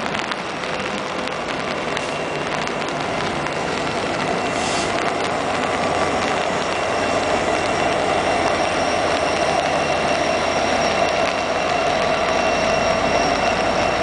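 Union Pacific freight train rolling past close by in pouring rain: a steady rumble and rattle of wheels on rail that grows louder through the second half, with a faint high steady whine joining in.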